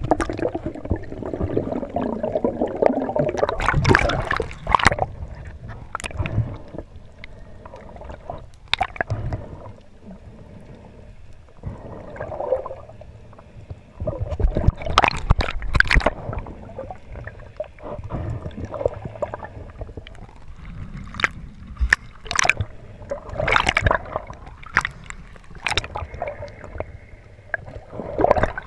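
Underwater camera audio of water gurgling and sloshing around the housing as a spearfisher swims, broken by irregular sharp clicks and knocks.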